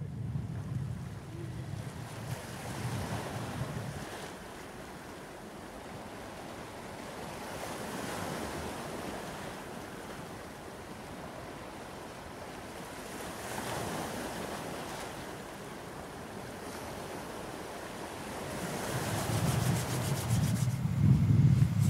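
Sea waves washing against a rocky shore, the noise swelling and fading every five or six seconds. Low wind rumble on the microphone at the start and again, louder, near the end.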